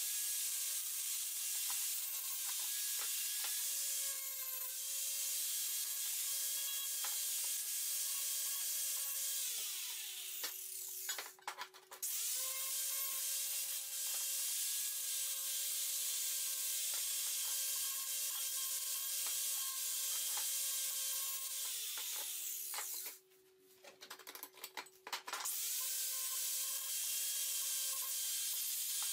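Angle grinder grinding steel angle iron: a steady motor whine under a grinding hiss. Twice, about ten and twenty-two seconds in, the grinder is switched off and spins down, then starts up again a couple of seconds later.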